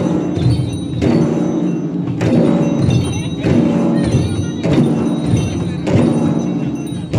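A group of Limbu chyabrung (ke) barrel drums beaten together for the ke lang drum dance. They play a repeating rhythm, with a heavy accented stroke about every 1.2 seconds and ringing tones between the strokes.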